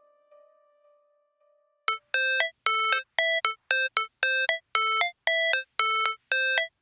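Music: the last note of a song dies away, then after a moment of near silence a new track starts with a synthesizer figure of short, bright beeping notes in low-high pairs, repeating steadily about twice a second, like a ringtone.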